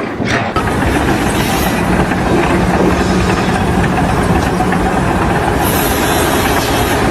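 Loud, steady mechanical running noise, like heavy machinery, with a faint low hum for a few seconds in the middle.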